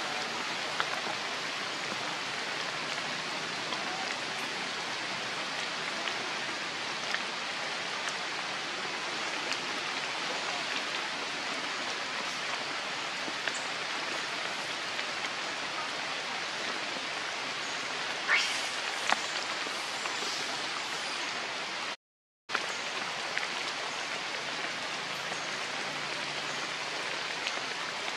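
Steady rain falling on forest foliage: an even hiss dotted with small drop ticks, with a brief louder crackle about two-thirds of the way through. The sound cuts out completely for a moment shortly after.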